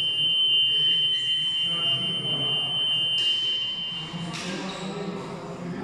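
Boxing gym round-timer buzzer sounding one long, steady, high-pitched tone that cuts off about four seconds in, marking a round change, with gym voices behind it.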